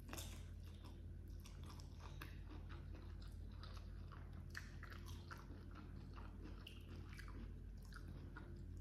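Close-up mouth sounds of chewing grilled rice with baby squid, with many short wet clicks and a little crunch throughout. A steady low hum runs underneath.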